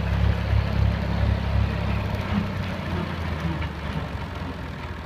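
Tractor engine running with a low, pulsing throb that grows fainter from about two seconds in.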